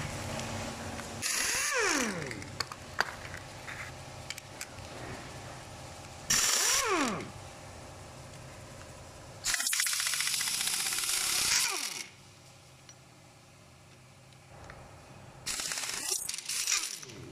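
Pneumatic impact wrench running in four short bursts, the third one longest, each ending in a falling whine as it spins down. It is undoing the bolts that hold the axle tube onto a front differential housing.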